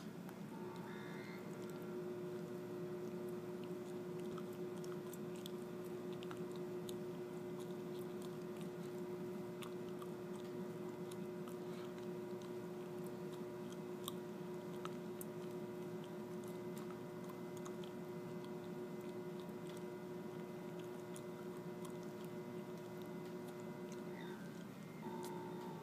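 Small electric motor turning a wall-mounted painted disc: a steady hum with several steady tones and scattered faint ticks. The tone shifts slightly about 24 seconds in.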